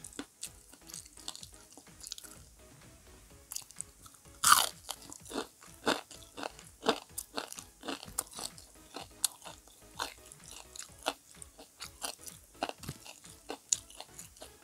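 Close-up chewing of crispy fried squash okoy: a run of sharp, irregular crunches as the fritter is bitten and chewed, the loudest about four and a half seconds in.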